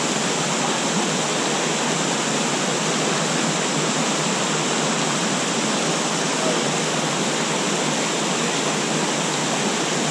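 Small waterfalls cascading into a pool and water rushing over rocks in a mountain stream: a steady, even rush of water that does not change.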